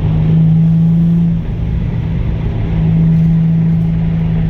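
Nissan 350Z's V6 running at cruise on the road, heard from inside the cabin, with its aftermarket headers, art pipes, Y-pipe and single-exit exhaust giving a steady low drone. The drone eases off about a third of the way in and returns near the end, as the throttle changes.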